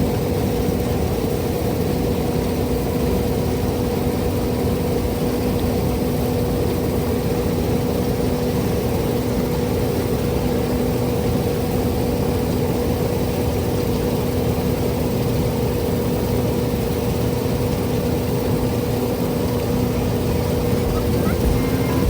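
Heavy farm machinery running steadily at close range, a constant mechanical hum with no change in pitch.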